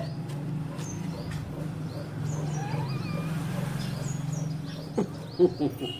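Birds chirping in short, high, falling notes over a steady low hum, with a toddler's few brief vocal sounds near the end.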